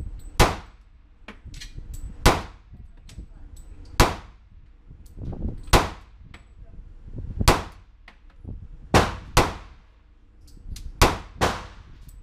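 Nine shots from a .40 S&W semi-automatic pistol, fired slowly at about one every two seconds, the last four in two quick pairs; each shot rings on in the echo of an indoor range.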